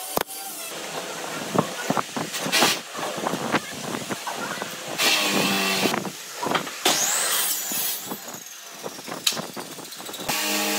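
Workshop handling sounds: a brad nailer fires once at the start, then a hand blade drawn along a straightedge scores an aluminium composite panel, with scraping, taps and clicks and a short squeal about seven seconds in.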